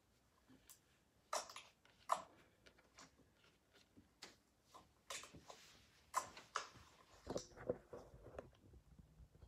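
Scattered sharp clicks and taps from hands on a Chromebook laptop's keys and trackpad, about one a second. Near the end come duller bumps and rustling, as of someone moving away from the table.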